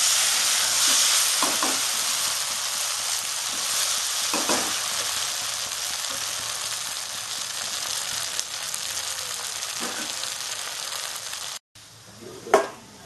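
Chilli paneer (fried paneer pieces, capsicum and onion in tomato sauce) sizzling steadily in a non-stick frying pan while a steel spatula stirs it, with a few short knocks of the spatula against the pan. The sizzle cuts off near the end, and a single metal clink follows.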